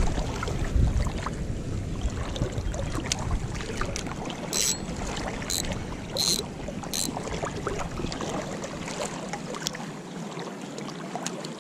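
River water sloshing and lapping around an angler wading in the current, with faint ticks from a spinning reel being cast and wound. Four short, sharp, high sounds come in quick succession around the middle.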